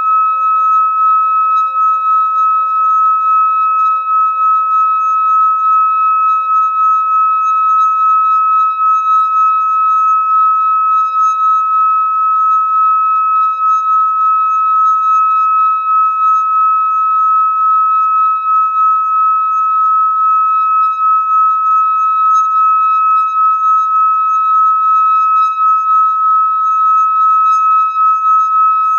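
Hand-held metal singing bowl sung by running a mallet around its rim: one steady, high ringing tone with a slight wavering in level, sustained throughout.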